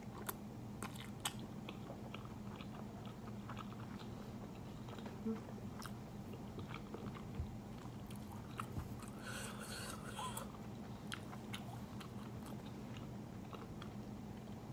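A person chewing a mouthful of jjapaghetti black-bean-sauce noodles with scattered small wet mouth clicks and smacks. A steady low hum runs underneath.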